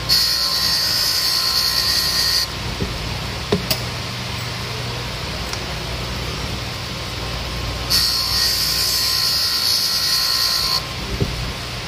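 Valve refacing machine running with a steady motor hum while a valve face is ground against its grinding wheel in two grinding passes, one at the start lasting about two and a half seconds and another about eight seconds in lasting about three seconds.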